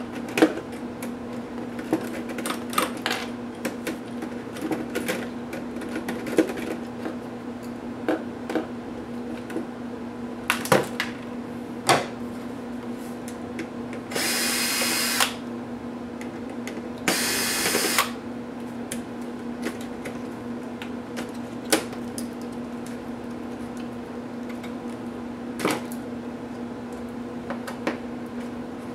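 Electric screwdriver running in two short bursts of about a second each, a few seconds apart, driving screws out of a laptop's internal board. Light clicks and taps of parts and tools being handled sound throughout over a steady low hum.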